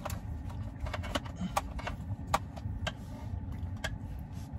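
Eating from a takeout container with a plastic fork: about ten sharp, irregular clicks and taps over a steady low rumble.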